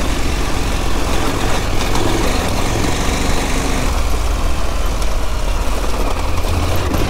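KTM 890 Adventure's parallel-twin engine running steadily at low revs as the bike rides slowly up a loose, rocky gravel track, mixed with wind and tyre noise on the stones.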